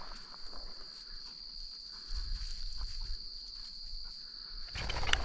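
Insects trilling in one steady, high, unbroken note across dry prairie grass, with soft footsteps through the grass and a low wind rumble on the microphone from about two seconds in. Near the end a loud burst of rustling noise begins.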